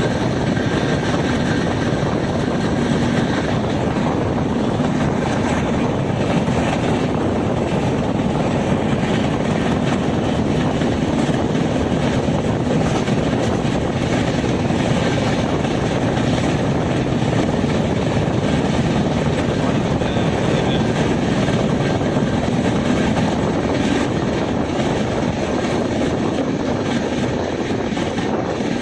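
Passenger train running at speed, a steady, unbroken rush of rumbling running noise.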